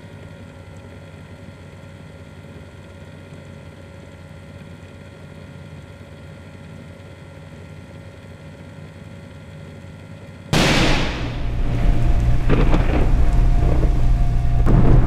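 Outro sound effects: a quiet steady drone with a few held tones, then about ten seconds in a sudden loud whoosh and boom that rolls on into a deep, thunder-like rumble.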